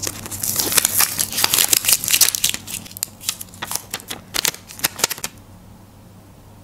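A paper sticker being peeled off its backing and handled over a paper page: crinkling and rustling with many sharp clicks. It dies down after about five seconds, as the sticker is pressed into place.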